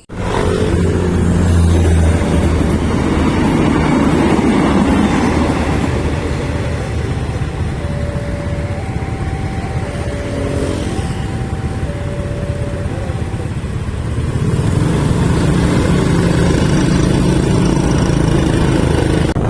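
Road vehicle on the move: a steady engine hum with road and wind noise. Midway, a two-note tone alternates high and low for several seconds.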